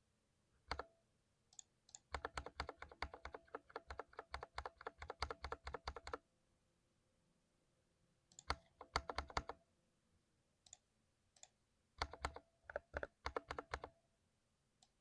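Typing on a modded mechanical keyboard: a fast run of keystrokes for about four seconds, a short burst a few seconds later, and another run near the end, with a few single key clicks in the pauses.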